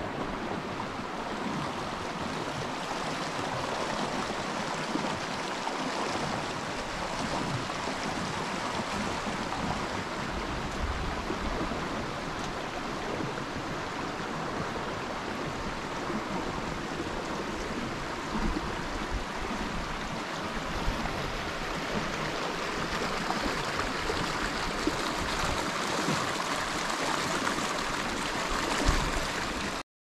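Shallow creek water running over rocks, a steady rush of flowing water.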